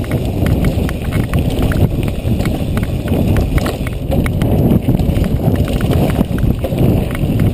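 Mountain bike rolling fast over a rough dirt trail: a steady rumble of tyres on dirt and stones, with the bike and the camera rattling and clicking over the bumps.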